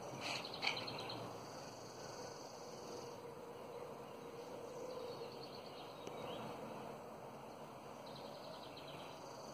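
Faint outdoor ambience: a steady background hiss with high, trilling chirps that come and go. There are two soft knocks in the first second.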